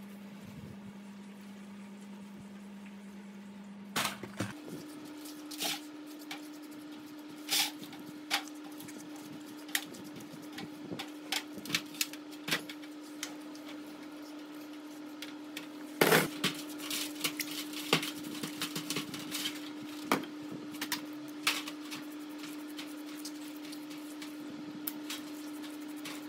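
Scattered sharp clicks and knocks of an electric motor's metal housing and a hand brush handled in a stainless steel tray of cleaning liquid, over a steady low hum. The hum steps up in pitch about four seconds in, and the knocking starts there; the loudest cluster of knocks comes about sixteen seconds in.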